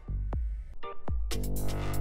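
Electronic dubstep-style background music with a heavy bass and sharp drum hits.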